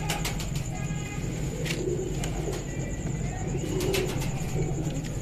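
Domestic pigeons cooing, low coos repeating about once a second, over a steady low hum and a few soft clicks.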